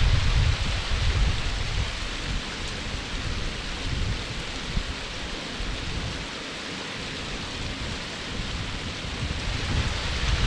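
Waterfall heard from its foot: a steady rushing hiss of falling water. A low rumble under it is strong at the start, eases off through the middle and swells again near the end.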